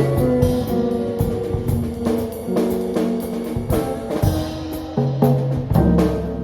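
A live band playing an instrumental tune at a sound check: a drum kit keeping time under sustained pitched notes and a bass line.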